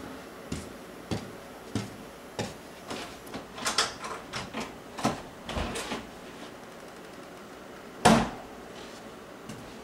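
Footsteps walking at a steady pace down a hallway, then a few clicks and knocks, then one loud bang from a door about eight seconds in.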